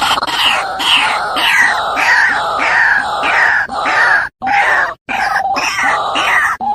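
White-breasted waterhen (ruak-ruak) calling: a loud series of harsh, repeated notes, about two a second, each dropping in pitch, cut off abruptly twice around the middle.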